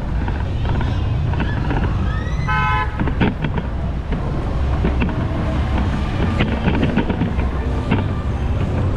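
Busy street traffic with a steady rumble of engines, and a short vehicle horn toot about two and a half seconds in.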